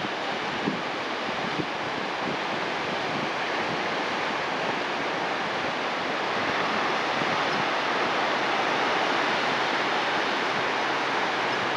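Ocean surf washing over a rocky, pebbly shore, a steady rushing that grows a little louder over the first half, with some wind on the microphone.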